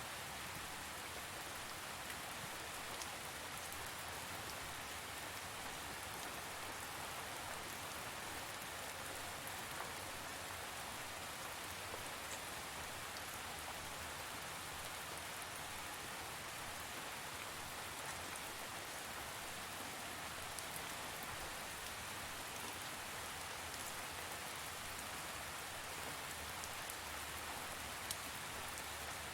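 Steady rain falling on a surface, an even hiss with scattered individual drops ticking, and a slightly sharper drop hit near the end.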